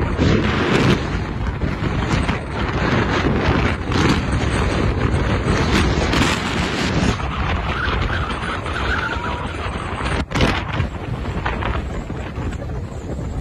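Strong, gusty wind buffeting the microphone: a loud, rumbling roar with irregular thumps as the gusts hit.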